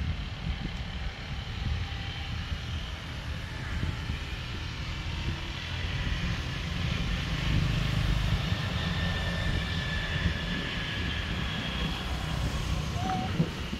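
Wind rumbling on the microphone, under a distant engine drone that swells and fades about halfway through.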